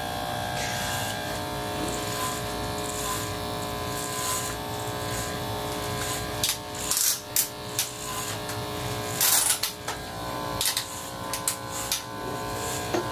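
Electric hair clippers running with a steady buzz as they cut through hair. Short sharp clicks come now and then, most of them in the second half.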